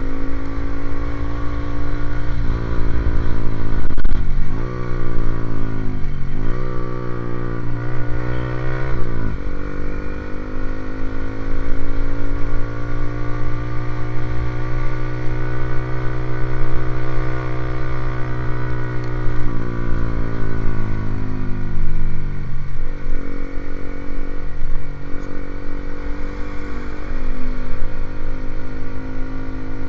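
Motorcycle engine running through an aftermarket racing exhaust, blipped quickly several times between about four and nine seconds in, then held at a steady speed before easing down to a lower, steady run about twenty seconds in.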